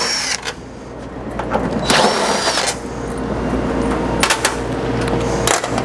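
Cordless drill-driver spinning a T20 Torx bit in two short bursts about two seconds apart, backing the screws out of a commercial dryer's front panel. A few sharp clicks follow near the end.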